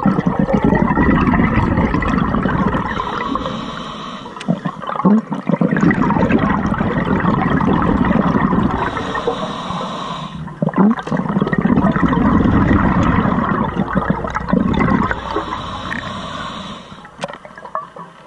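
Scuba diver breathing through a regulator underwater: long, loud rushes of exhaled bubbles, each broken by a shorter, quieter hiss of inhalation, about three breaths in all.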